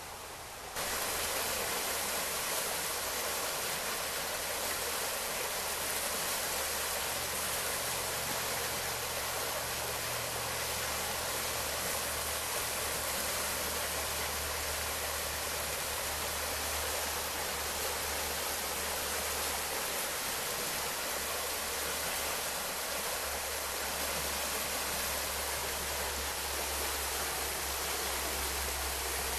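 Snowmelt-fed forest stream flowing, a steady rushing hiss of water that steps up louder a little under a second in.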